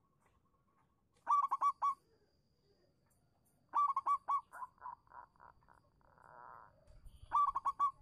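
Zebra dove calling: three phrases of quick staccato cooing notes, about a second in, mid-way and near the end. The middle phrase is the longest and trails off in softer notes.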